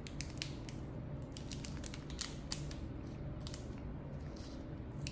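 A small plastic packet being torn open with the teeth and handled: scattered short crinkles and clicks over a low steady hum.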